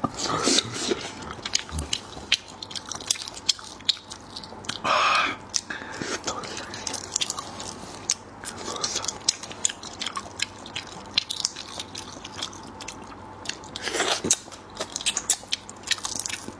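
Close-miked eating of seafood: wet chewing and biting with many small clicks and crunches, and a couple of brief louder slurps, about five seconds in and again near the end.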